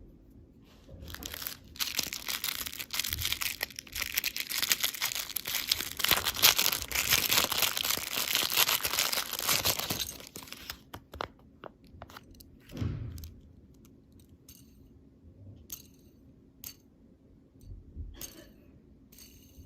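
Crinkly candy packaging being torn open and crumpled in dense, crackling handling for about ten seconds, then a few light clicks and taps and one soft thump.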